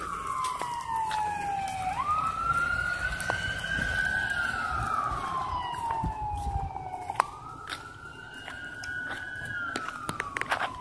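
Emergency vehicle siren wailing in slow cycles: the pitch jumps up, holds briefly, then slides slowly down, repeating about every five seconds.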